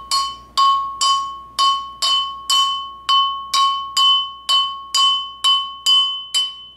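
Small brass hammer tapping a pressed-on brass collar on a steel axle tube, a steady series of strikes about two a second, each leaving a clear ringing tone that fades before the next. The taps are driving the collar back flush with the end of the tube.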